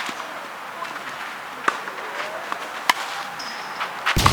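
Two crisp tennis-ball strikes off racket strings, a little over a second apart. Near the end a loud, deep boom-like sound effect cuts in suddenly.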